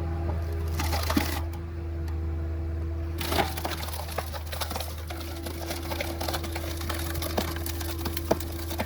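A firewood log cracking and splintering as the splitter's wedge forces it apart: a sharp crack a little after a second in, a louder crack about three and a half seconds in, then a run of small cracks and pops. Under it, the Caterpillar 247B3 compact track loader's engine runs with a steady hum.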